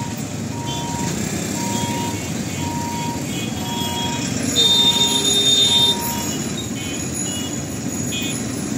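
Road traffic crossing a railway level crossing: motorcycle and scooter engines running, with an electronic beep repeating about once a second that stops about six seconds in. Short horn toots sound throughout, and a louder, high-pitched horn blast lasting over a second starts about halfway through.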